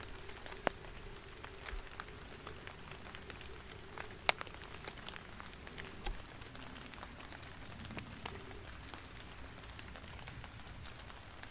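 Quiet woods with scattered light taps and ticks of drops falling on leaves. A faint steady hum fades out about eight seconds in.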